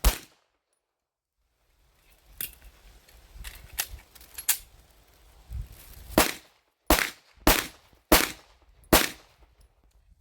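9mm pistol shots from a Canik Rival-S: one loud shot at the start, then a string of five loud shots a little under a second apart from about six seconds in, with several fainter sharp reports in between.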